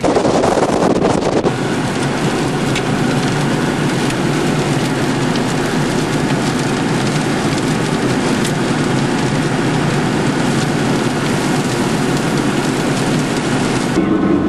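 Hurricane wind and driving rain: a loud, steady rush of noise with no let-up. Shortly before the end it cuts abruptly to the quieter, steady hum of a car driving.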